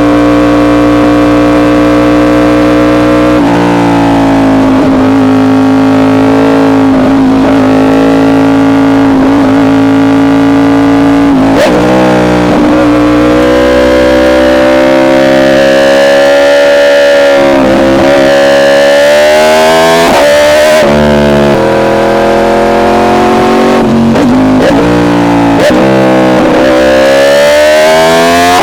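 Yamaha R1's inline-four engine through an SC Project exhaust, held at high revs; its pitch holds, then drops or climbs several times as the gears change.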